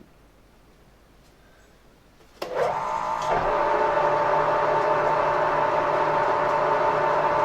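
Workshop machine tool switched on about two and a half seconds in: its electric motor spins up briefly and then runs at a steady speed with a constant hum and whine, the machine getting ready to drill a 13 mm hole in a nylon part.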